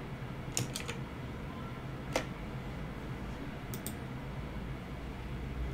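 Scattered sharp clicks of a computer keyboard and mouse, over a low steady hum. There is a quick run of three clicks just after the start, a single click about two seconds in, and a pair of clicks near four seconds.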